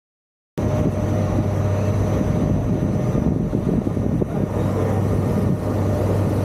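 Tour ferry's engine running with a steady low drone and a noisy wash over it, starting abruptly about half a second in.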